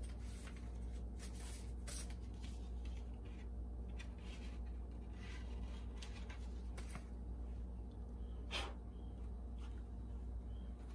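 A steady low electrical hum with a few faint clicks and rustles, the most noticeable a brief rustle about eight and a half seconds in.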